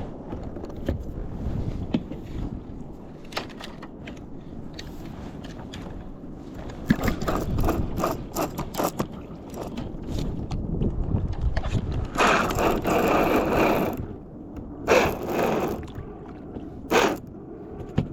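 Fishing reel being cranked, with clicks and scrapes from the gear on the ski; a louder rushing burst comes about twelve seconds in.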